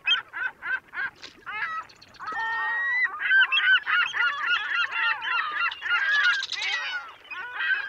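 A flock of birds calling: quick repeated honking calls, about four a second at first, building into a dense overlapping chorus about three seconds in.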